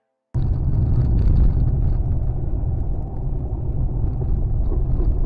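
Steady low rumble of a moving car's engine and tyres on the road, heard from inside the cabin, starting abruptly a moment in.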